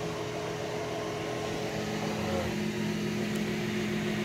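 Cison L4-175 inline four-cylinder, water-cooled four-stroke model engine running steadily on nitro glow fuel, which it runs well on. Its note changes slightly about two seconds in.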